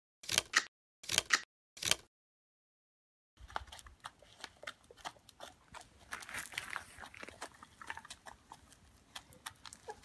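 Three short cracking sound effects as an animated egg hatches. After a pause, hens peck grain off a concrete floor: a quiet, irregular scatter of quick taps and small crunches.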